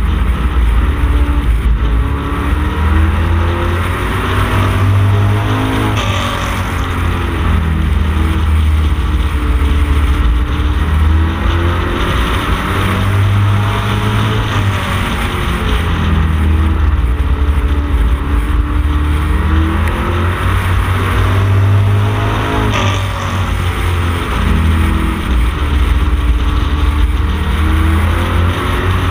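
Street stock Camaro race car's engine at racing pace, heard from inside the car. Its pitch climbs and falls in a repeating cycle every eight seconds or so, around the laps of the oval.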